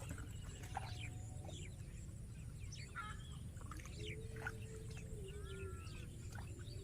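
Scattered short animal chirps and calls over a steady low rumble, with a single sharp click at the very start.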